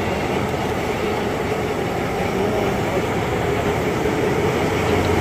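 Steam locomotive on a rotating turntable: a steady rumble of running machinery with a held hum.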